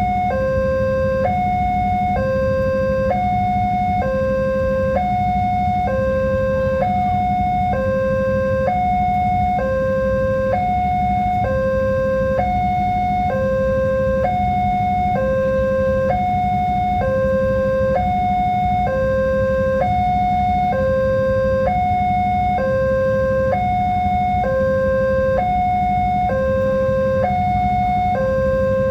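Railway level-crossing warning alarm sounding continuously, alternating evenly between a higher and a lower tone, about one tone per second. A steady low hum runs underneath.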